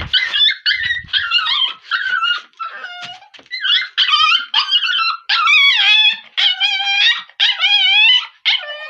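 Puppy whining and howling in distress: a string of high, quavering cries, short at first, then longer and wobbling in pitch from about five seconds in.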